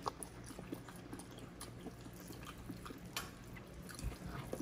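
Faint, close-miked chewing and mouth sounds of people eating grilled chicken and rice with their hands, with scattered small wet clicks and smacks.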